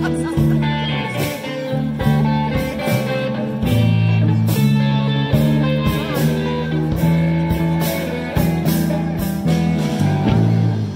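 Band playing blues-rock music: guitar over a bass line and a steady drum beat, through PA speakers.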